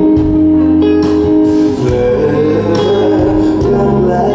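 Live band music led by guitar over steady low bass notes, played during a stage sound check.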